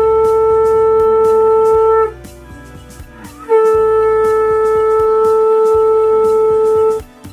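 Conch shell (shankha) blown in two long, steady, loud blasts. The first ends about two seconds in and the second starts about a second and a half later. Faint background music with a light beat runs underneath.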